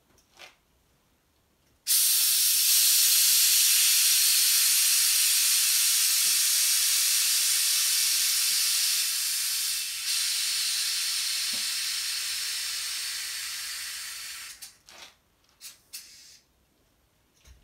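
Air suspension of a lowered Mazda RX-8 letting its air out: a loud hiss that starts suddenly about two seconds in and fades slowly over some twelve seconds as the car drops to the ground. A few light knocks follow near the end.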